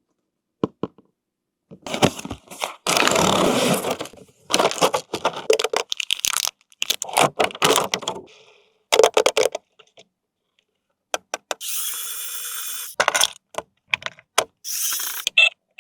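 Handling of toy packaging and plastic parts: sharp clicks and knocks with stretches of rustling and tearing, and a short steady hiss about twelve seconds in.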